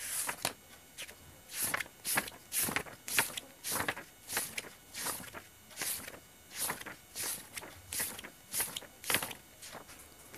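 Paper pages of a book being turned one after another, a short papery flick just under twice a second.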